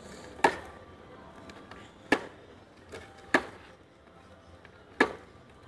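Sharp plastic clacks from a toddler's plastic ride-on toy motorbike on brick paving, four loud ones at uneven gaps of one to two seconds.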